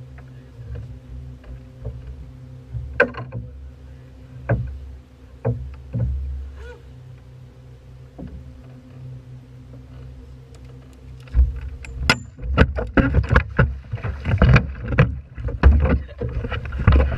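Knocks and bumps on a fishing boat's deck right beside the camera, over a steady low hum. From about eleven seconds in the knocks come thick and loud.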